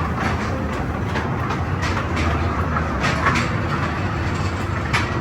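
Small mine tour train running on rails underground, with a steady rumble and scattered clacks from the wheels.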